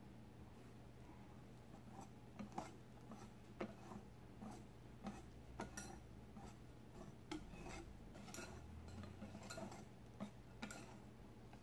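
Wire whisk stirring cake batter in a glass bowl, its wires ticking and clinking faintly against the glass at an irregular one or two times a second, over a faint low hum.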